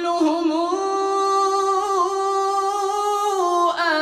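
A man's voice reciting the Quran in melodic tajweed chant, sliding into the words 'wa kulluhum' and then holding one long steady note for about three seconds before breaking off near the end.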